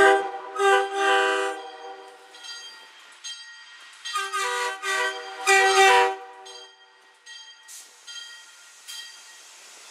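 MBTA commuter rail train's air horn sounding a chord of several tones as the train approaches the platform. There are two blasts in the first second and a half, then three more between about four and six seconds, the last one the longest. After that the passing train is much quieter.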